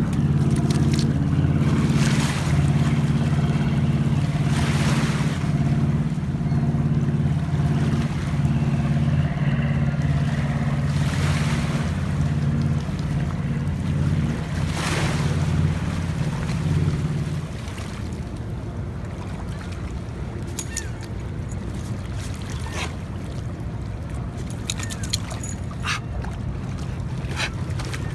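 An engine running steadily, easing off about two-thirds of the way through, with several rushing swells of noise over it.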